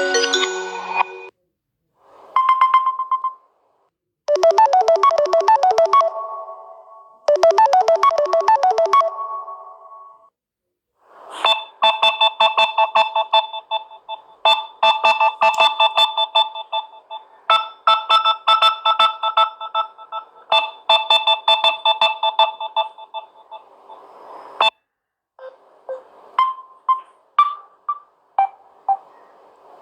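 Samsung Galaxy A20 phone ringtones played one after another. A short tone comes about two seconds in, then a brief melodic phrase played twice. A longer repeating melody runs for about thirteen seconds, and near the end a sparser tune of single notes follows.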